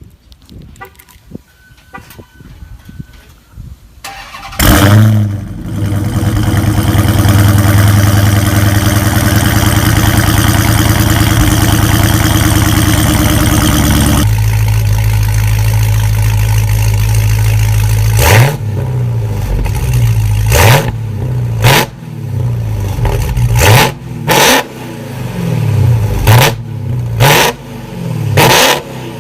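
A Dodge muscle car's engine cranking and catching about four seconds in with a loud bark, then idling fast and steady until the idle steps down about ten seconds later. In the last third the throttle is blipped in a string of short revs, about eight of them, each rising and falling in pitch.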